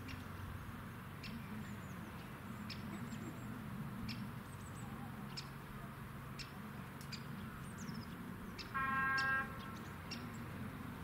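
A short horn blast, about half a second long, about nine seconds in, over a steady low rumble with scattered clicks and bird chirps.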